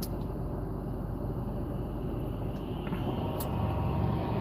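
Low, steady vehicle rumble that swells slightly about three seconds in, with a couple of faint clicks.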